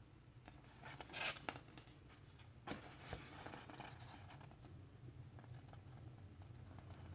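Faint paper rustling from a record's booklet and inserts being handled, with a short burst of rustles about a second in, a small click at under three seconds, and another brief rustle just after.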